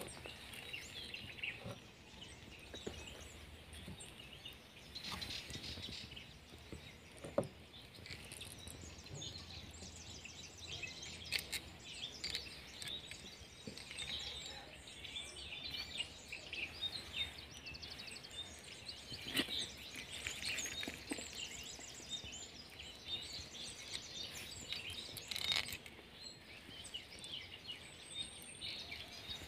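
Outdoor ambience with small birds chirping in the background throughout, and a few light clicks or knocks here and there from handling.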